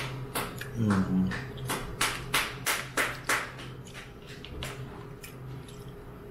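Close-up mukbang eating sounds: a quick run of about ten wet mouth smacks while chewing raw toro tuna, with a short hummed "mm" about a second in.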